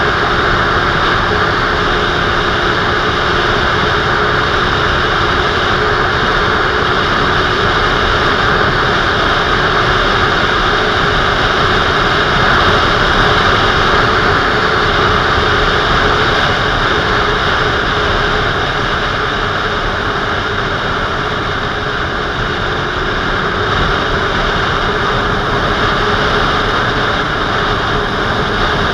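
Motorcycle cruising at a steady speed: a steady engine drone under a loud, even rush of wind on the camera's microphone.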